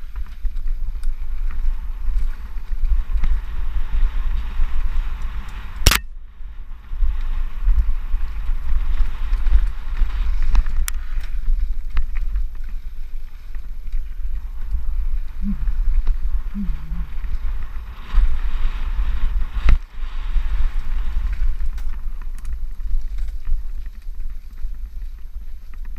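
Wind buffeting a helmet-mounted microphone and tyres hissing over a dirt trail during a fast mountain bike descent, with two sharp knocks, one about six seconds in and one near twenty seconds.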